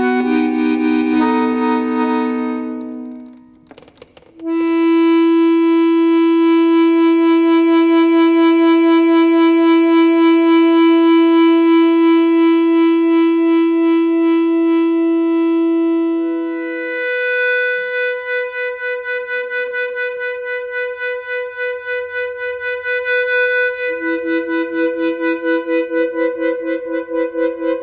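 Instrumental background music of long held notes. A chord fades away, then after a short pause comes one long low note, then a higher one, and near the end two notes sound together with a pulsing waver.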